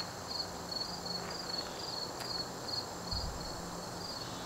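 Insects chirping in a steady rhythm, about two short high chirps a second.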